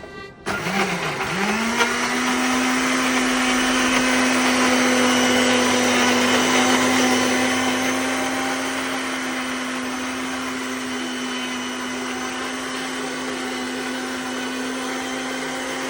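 Electric kitchen blender switched on about half a second in, its motor spinning up and then running at a steady pitch as it purees shallots, garlic and ginger with water. It runs a little quieter in the second half.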